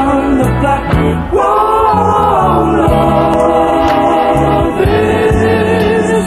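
Recorded soul song by a vocal group: several voices sing long held notes in harmony over bass and a steady beat, each note held for about one to two seconds.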